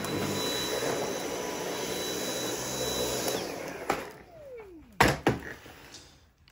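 Dyson V8 cordless stick vacuum running with a steady whine, then shutting off about three seconds in, its motor winding down in a falling whine. Three sharp knocks follow, the loudest about five seconds in.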